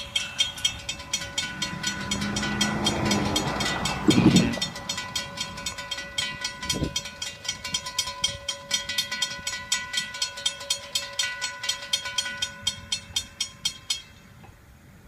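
Florida East Coast Railway freight train passing behind diesel locomotives, with a low rumble that peaks about four seconds in. Over it, a grade-crossing bell rings in fast, even strokes and stops about fourteen seconds in.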